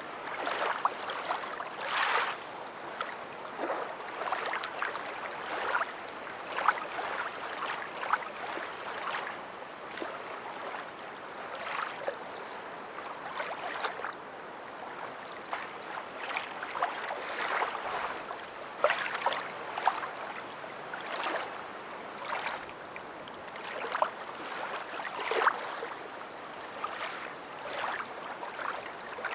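Water splashing and gurgling in irregular bursts, about one every second or so.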